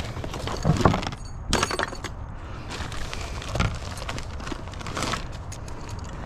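Hard objects being handled and shifted, knocking and clattering against each other in a short series of sharp impacts, the loudest about a second in.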